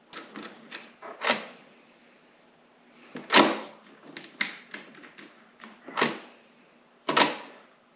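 Small metal fasteners and the Linq brackets clicking and knocking against the snowmobile's rear tunnel as bolts are set into the drilled mounting holes. Irregular single clicks, the loudest about three and a half seconds in and near the end.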